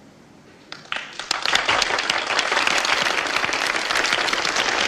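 Audience applause: a few scattered claps about a second in quickly swell into steady, dense clapping.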